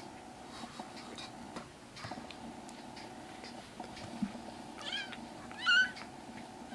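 Kitten meowing twice near the end, two short, high calls, the second one louder.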